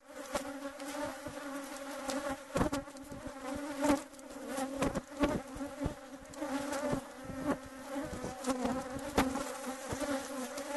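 Honeybees buzzing in a steady hum whose pitch wavers slightly, with scattered sharp ticks throughout.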